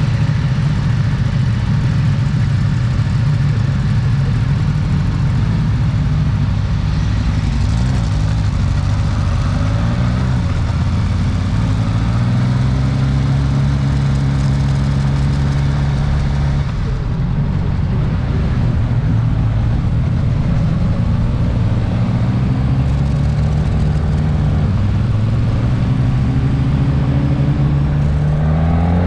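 Suzuki GSX-S 1000S Katana's inline-four engine under way, heard from on board, its pitch rising under throttle and falling back several times. A steady rush of wind and road noise runs underneath.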